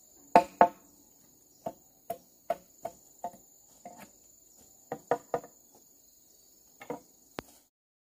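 A hand tool delivering a run of irregular chopping blows, about a dozen strikes, the first two the loudest, over a steady high-pitched insect drone. The sound cuts off suddenly near the end.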